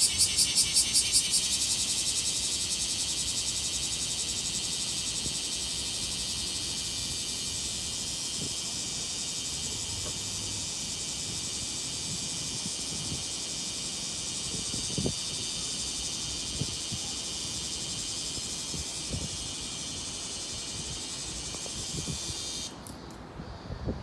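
Bear cicada (kumazemi, Cryptotympana facialis) singing: a fast pulsing phrase of about six pulses a second that ends about a second in, then a steady, high buzzing drone that slowly fades and cuts off suddenly near the end.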